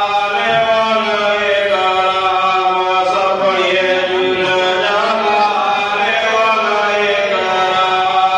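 A man chanting solo into microphones, a melodic religious recitation with long held notes that waver and turn in pitch, breaking only for brief breaths.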